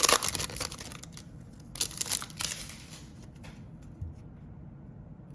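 Cellophane wrapper of a trading-card cello pack crinkling and tearing as it is ripped open. There are a loud burst at the start and a second cluster about two seconds in, then quieter handling that fades.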